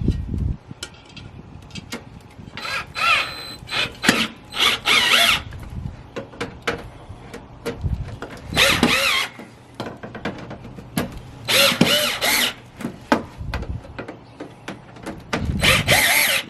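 A cordless drill-driver driving a small screw into a window air conditioner's top mounting rail, run in about five short whirring bursts of around a second each, with small clicks and knocks of handling between them.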